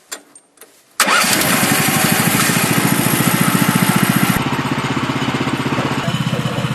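A small engine running steadily with an even, rapid pulse, cutting in abruptly about a second in. A loud hiss over it stops suddenly about three seconds later while the engine keeps running.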